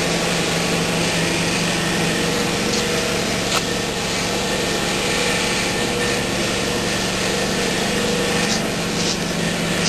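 A small single-cylinder gasoline engine, the John Deere 1032 snowblower's own, running steadily at an even speed.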